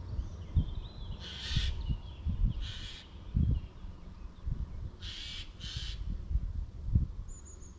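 A crow cawing: a few short harsh calls, one about a second in, one near three seconds and two close together about five seconds in. Low knocks and rumble sound underneath.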